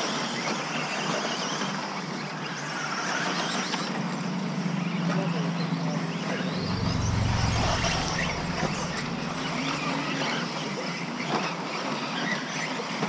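Electric 1/10 two-wheel-drive RC buggies racing on an astroturf track: a steady hiss of tyres and motors with faint rising and falling motor whines. A low rumble comes in about seven seconds in and fades two seconds later.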